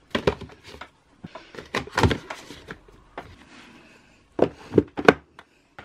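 Cardboard-cased makeup palettes being handled and set down in a drawer: a series of light knocks and taps with rustling between them, the loudest knocks coming close together about four and a half to five seconds in.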